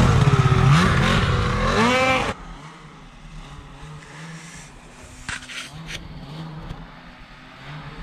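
Polaris 850 Assault snowmobile's two-stroke engine revving hard close by, its pitch wavering and then climbing steeply as it accelerates. About two seconds in the sound drops off abruptly, leaving only a faint, steady engine drone.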